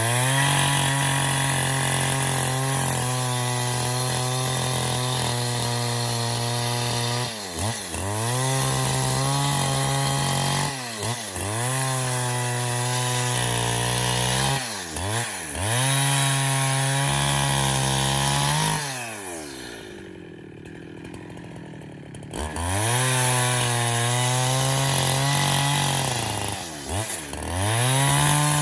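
Husqvarna 372 XP two-stroke chainsaw engine revved high and held, with the throttle let off and reopened several times so the pitch dips and sweeps back up. About nineteen seconds in it falls to low revs for a few seconds, then revs back up.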